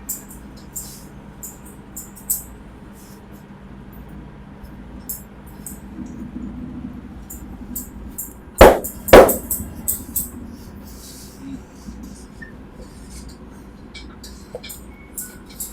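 Barber's hands working a client's head and hair: light scattered rubbing and tapping, with two loud hand smacks about half a second apart around nine seconds in.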